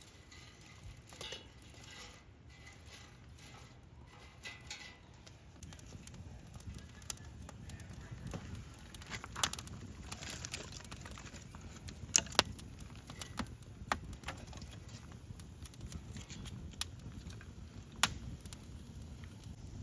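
Campfire of damp wood catching: a low hiss that grows, with scattered sharp crackles and pops, a few louder ones about halfway through and near the end.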